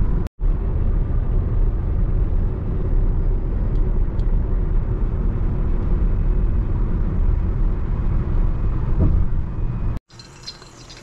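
Steady engine and tyre noise inside a moving car's cabin, a low rumble at road speed. About a second before the end it drops to the faint hum of a quiet room.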